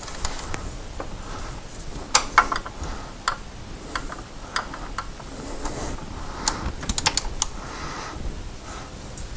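Ratchet and socket clicking in short runs, with scattered light metal taps and clicks, as a 16 mm alternator mounting bolt is worked loose and backed out.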